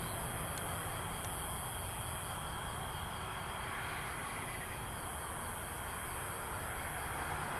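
Steady background hiss with a low rumble underneath and a constant high-pitched band on top, unchanging throughout, with no distinct events.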